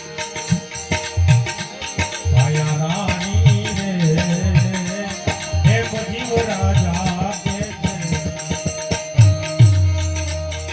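Live devotional bhajan music: a hand drum beating a rhythm in low pitched strokes under steady jingling percussion, with a wavering melody line over it from about two seconds in until about seven seconds.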